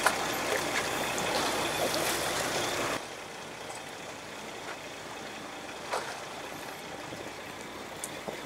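Sea water splashing and trickling against the side of the boat's hull, an even rushing noise that drops abruptly to a quieter hiss about three seconds in. A single faint knock comes about six seconds in.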